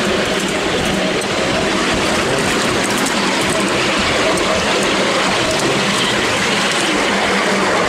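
Ride-on miniature railway train running along its track, heard from on board: a steady rumble of wheels on the rails with a steady hum underneath and a few faint ticks.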